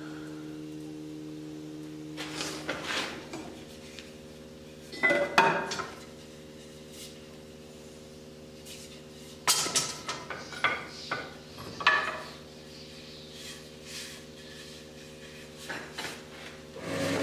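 Steel bar stock and wooden axe handles clanking and knocking against each other as they are shifted in a storage rack, in loose bursts, the loudest about five seconds in and a cluster a few seconds later. A steady machine hum runs underneath.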